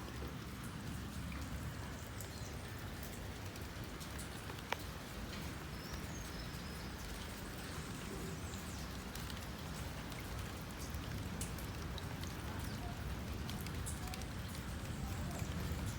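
Steady rain falling, with scattered drops ticking close by and one sharper tick about five seconds in, over a low rumble.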